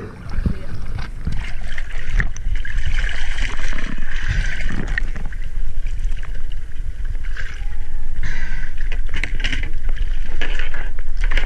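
Sea water sloshing and splashing against a small boat's hull at the waterline, with scattered knocks and bumps as a large amberjack is hauled over the side.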